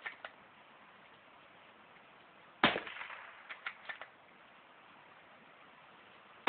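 Savage Mark II bolt-action .22 LR rifle firing one sharp shot about two and a half seconds in, followed about a second later by three quick clicks as the bolt is worked to chamber the next round. The next shot comes right at the end.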